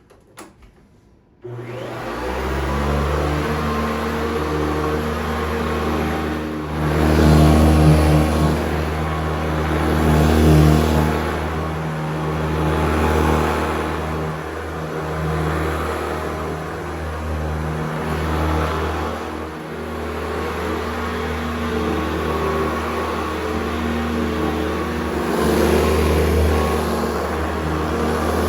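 Vintage Hoover Decade 80 upright vacuum switching on about a second and a half in, then running: a steady hum from the motor and a low rumble from the beater bar brush roll. Its loudness rises and falls every few seconds as it vacuums. The brush roll has just been rebuilt and the motor bearings lubricated.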